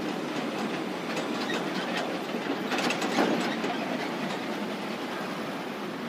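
Traffic noise from riding a motorbike close beside heavy container trucks: a steady rush of wind, tyres and engines, with a clattering rattle that swells about three seconds in.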